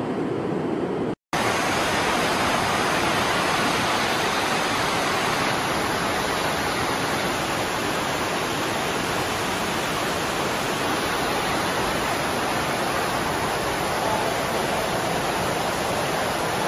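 Floodwater rushing and churning through a flooded station concourse: a steady rushing of water. It is briefly cut by a moment of silence about a second in.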